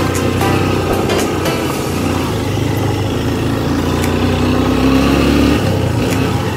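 Honda XR 150's single-cylinder four-stroke engine running as the motorcycle is ridden at steady speed. The engine note shifts about five and a half seconds in.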